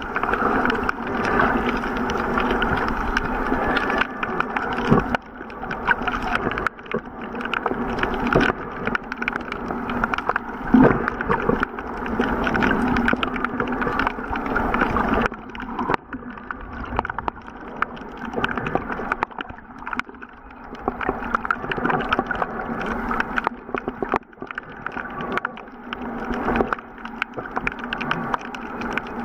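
Underwater sound picked up by a waterproof camera's microphone while snorkelling: a muffled, dull noise of moving water, with many crackles and clicks.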